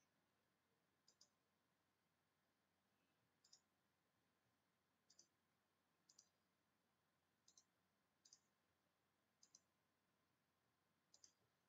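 Faint computer mouse button clicks, about eight of them spaced a second or two apart, each a quick pair of ticks.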